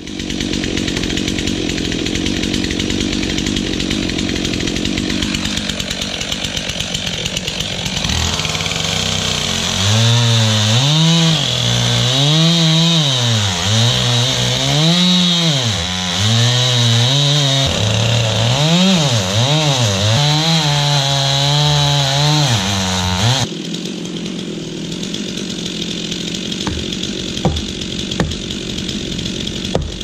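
Stihl chainsaw cutting into a dead maple trunk. Its engine pitch climbs and sags over and over as the throttle is worked and the chain loads up in the wood. About 23 seconds in it drops back to a lower, steadier run, and a few sharp knocks follow near the end.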